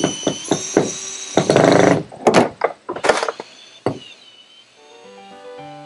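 Cordless drill driving a 1.5-inch sheet metal screw into a van's sheet-metal roof: loud clattering and grinding as the screw bites, several sharp knocks, and the drill's whine dying away. Piano background music comes in near the end.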